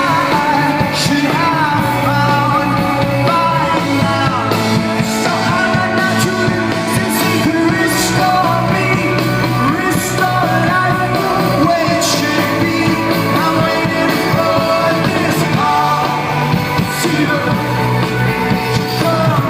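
Live rock band playing the song with a singer's vocals over it, heard loud and steady from the crowd, with cymbal crashes every few seconds.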